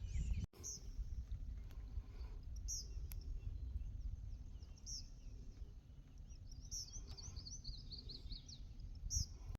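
Wind rumbling on the microphone, with a small bird's short high chirps every couple of seconds and a quick run of chirps in the last few seconds.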